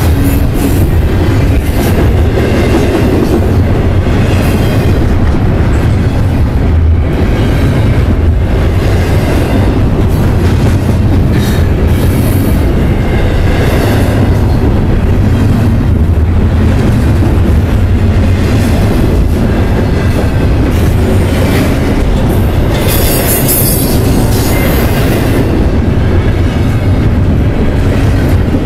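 Double-stack intermodal container cars of a freight train rolling past close by. A loud, steady rumble of wheels on rail with clicking over the rail joints, and a brief high squeal about three-quarters of the way through.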